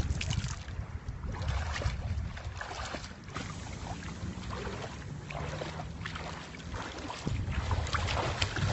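Wind buffeting the microphone in uneven gusts, easing in the middle and picking up near the end, with light splashing of shallow water around wading feet.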